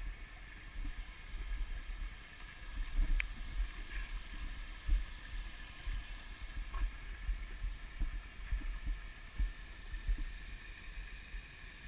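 Faint steady trickle of creek water spilling from a culvert outlet, under a low rumble and irregular low thumps from wind and handling on the walking camera's microphone.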